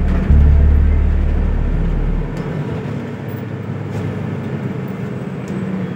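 Engine and road rumble inside a moving bus. The deep rumble is loud at first and drops away a little over two seconds in, leaving a steadier road noise.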